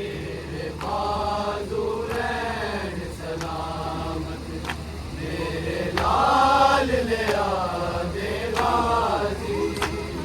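A group of men chanting a noha (a Shia lament) together in long, drawn-out phrases, with a steady low hum beneath and a few sharp knocks now and then.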